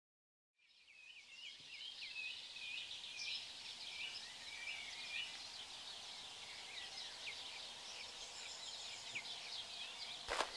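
Birds chirping over a faint outdoor hush that fades in after a moment of silence, many short repeated calls with quick pitch slides. Near the end, footsteps crunch on railway ballast stones.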